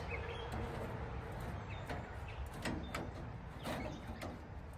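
Several light clicks and knocks of small car-body parts, side marker light bezels, being handled and set against the body, over a steady outdoor background hiss.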